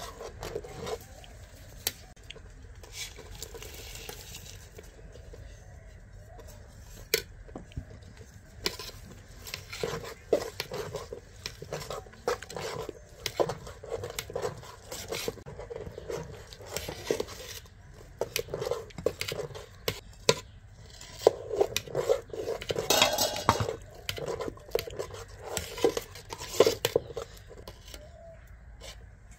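A long metal spoon stirring rice and milk in a large metal cooking pot, scraping and clinking against its sides. The clinks are sparse at first and come much more often from about a third of the way in.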